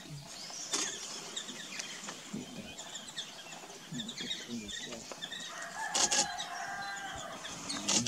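Assorted wild birds chirping and calling in short notes, with a longer, lower call from about six to seven seconds in. Sharp knocks cut through about a second in, about six seconds in and at the very end.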